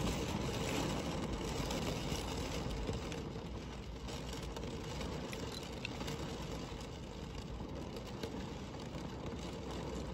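Storm wind and rain against a minivan, heard from inside the van: a steady rushing noise with a low rumble.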